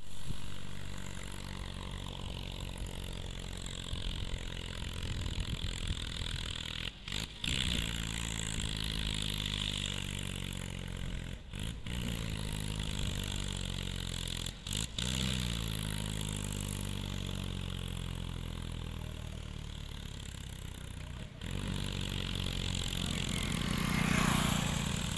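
A vehicle engine running steadily on a deep, even note. It drops out briefly four times, the pitch climbing after a couple of the dips, and swells louder near the end.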